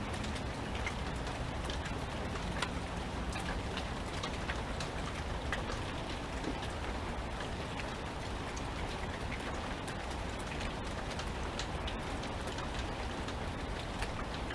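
Steady rain falling, with many separate drop hits standing out close by.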